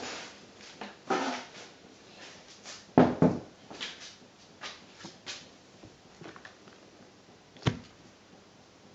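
Scattered knocks and clatters of a model railway locomotive being handled and set down on the track. The sharpest knocks come about three seconds in and near the end.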